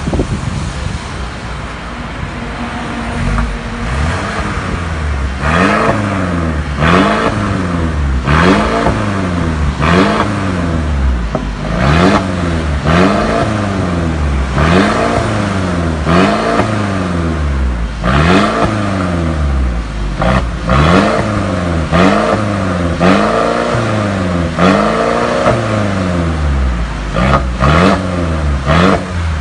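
Mercedes GLC300's turbocharged four-cylinder engine blipped repeatedly through an aftermarket valved (on/off) exhaust, about a dozen quick revs, each rising and falling in pitch. It idles for the first few seconds before the blips begin.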